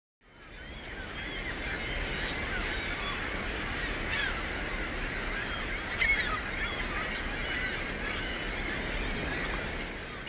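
Recorded ambience opening a song track: a steady hiss with many short, overlapping high calls scattered through it, and no music yet.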